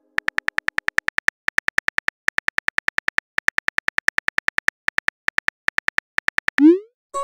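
Phone keyboard typing clicks from a texting app: a rapid run of short, identical ticks, about eight a second with a few brief pauses, one per letter as a message is typed. Near the end comes a short rising swoosh as the message is sent.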